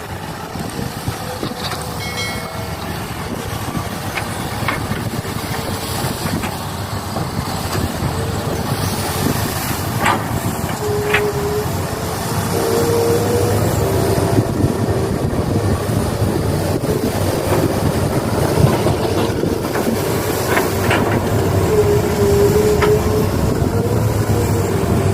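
Small electric motors of radio-controlled model excavators and dump trucks running, with a whine that shifts up and down in pitch as they work and a few sharp clicks.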